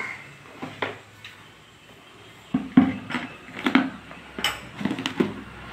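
Dishes being handled: a single knock, then a run of short clinks and knocks in the second half, as clay pots and crockery are moved and set down on the table.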